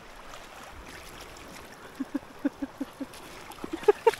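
Shallow glacial river running, then from about halfway a quick run of short, pitched squeaks, four or five a second, that turn higher and come faster near the end.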